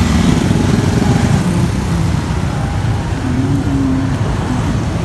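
Small motorcycle engine running at low speed, a steady low rumble.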